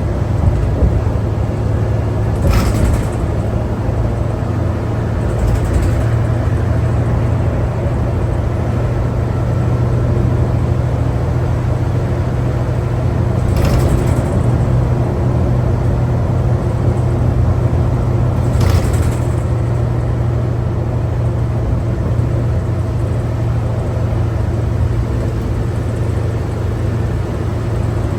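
Inside an articulated New Flyer D60LFR diesel bus under way: the Cummins ISL9 engine and road noise give a steady low rumble, broken by a few brief rattles or clunks.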